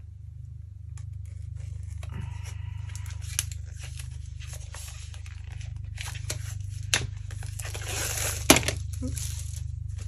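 Packaging on a stack of cards being cut and torn open: crinkling and tearing with a few sharp snips, the loudest snip near the end.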